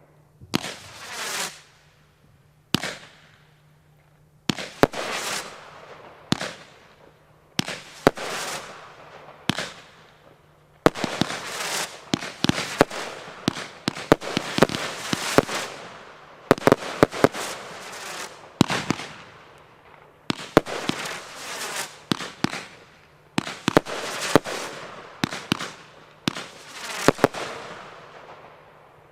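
The 'Ammo Crate' consumer firework (item 1551) firing a long series of shots: sharp bangs, each followed by a crackling, hissing tail. The shots come in volleys separated by short pauses and stop near the end.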